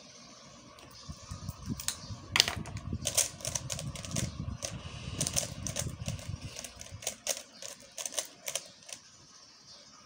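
A 3x3 speedcube being turned rapidly by hand: a dense, irregular run of plastic clicks and clacks lasting about eight seconds, with dull handling knocks underneath for most of it, then it stops.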